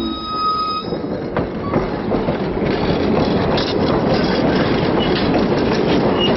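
Lackawanna passenger coaches rolling past close by: a steady rumble with the wheels clicking over rail joints, growing louder over the first two seconds.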